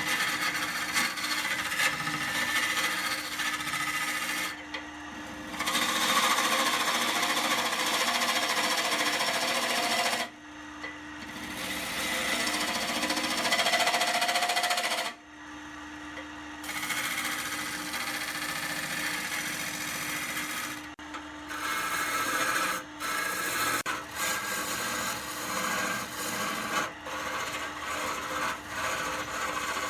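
Wood lathe running while a turning tool cuts and scrapes the spinning wood, over a steady motor hum. The sound drops away abruptly for a moment several times.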